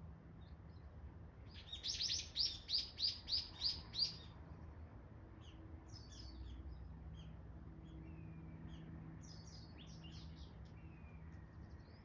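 Small songbirds chirping: a loud run of about seven quick, evenly spaced high chirps about two seconds in, followed by scattered fainter chirps.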